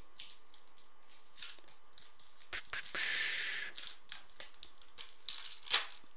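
Foil trading-card pack wrapper crinkling and cards being handled: scattered light clicks and rustles, a longer crinkling hiss about three seconds in, and a sharp crackle near the end.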